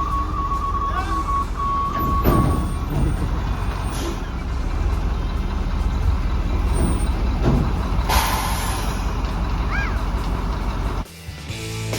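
Heavy work truck engine running, with a steady high beeping tone for the first three seconds and a hiss of air brakes released about eight seconds in. The truck sound cuts off a second before the end, giving way to music.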